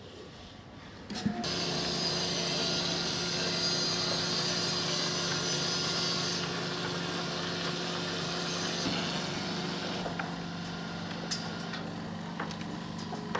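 A sharp click about a second in, then a dozer's diesel engine running with a steady low drone and a high hiss; the hiss eases about halfway through.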